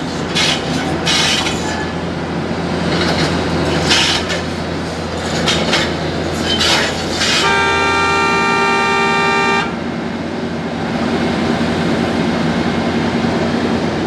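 Diesel engine of a JCB excavator running steadily as it crosses a concrete road, with scattered knocks and scrapes in the first few seconds. About seven and a half seconds in, a horn sounds for about two seconds at one steady pitch.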